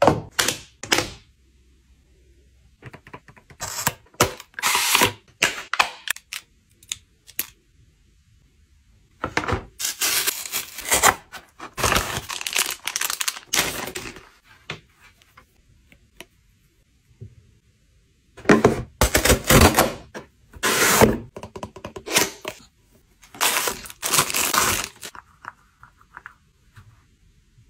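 Close-up handling of plastic goods in separate bursts with quiet gaps between. Near the start the clip-down lid of a plastic bento lunchbox snaps shut with clicks. Later a clear plastic bag rustles as small items are pulled out of it.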